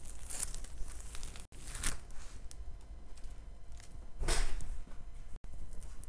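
Crinkling rustles of a diamond painting canvas being handled, in a few separate bursts, the loudest about four seconds in. The sound cuts out briefly twice.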